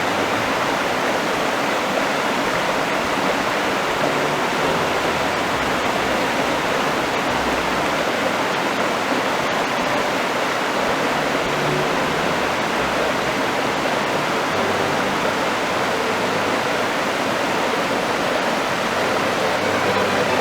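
A waterfall's water falling and rushing, a steady, even sound with no change in level.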